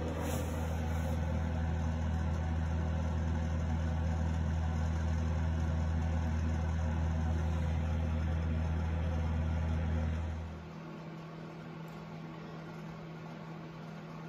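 A machine's steady low hum that cuts off suddenly about ten seconds in, leaving a fainter steady hum underneath.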